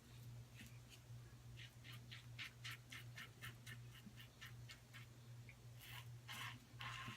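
A razor blade scraping through stubble in a quick run of short strokes, about four a second, then a few longer strokes near the end, over a faint steady hum.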